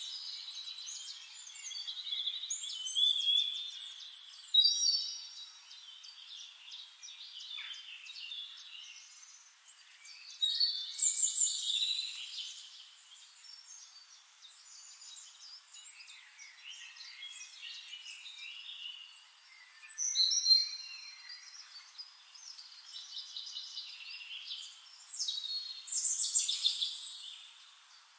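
Songbirds chirping and singing in short, high, warbling phrases, louder every several seconds.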